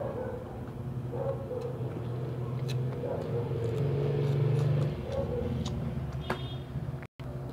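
A steady low rumble, like an engine running nearby, that grows louder for about a second just past the middle and then falls back, with scattered small clicks and smacks of shrimp being eaten by hand.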